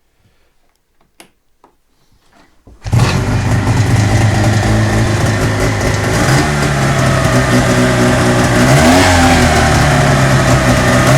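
A Taiga engine starts suddenly about three seconds in, after a few faint clicks, then runs steadily. Its pitch steps up a little around six seconds and rises and falls briefly near nine seconds as it is revved. The owner hears an extraneous noise in this engine.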